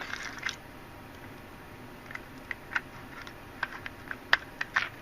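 Scattered light clicks and taps of an opened plastic laptop battery pack's case and cells being handled, the sharpest a little over four seconds in.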